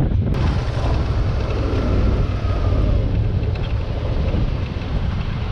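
Adventure motorcycle riding on a dirt track: its engine running under a steady rush of wind on the handlebar-mounted microphone.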